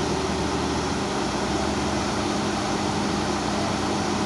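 Heavy diesel engine running steadily, holding a constant pitch.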